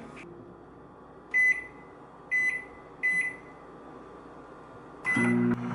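Hamilton Beach 700-watt microwave oven: its keypad beeps three times as a 40-second cook time is keyed in, then a longer beep about five seconds in as start is pressed and the oven's steady low hum begins.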